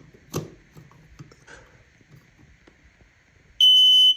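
Faint knocks and clicks as an ionization smoke detector is handled on its wall mount. Then, near the end, its alarm sounds a loud, steady, high-pitched beep as it is put through its test.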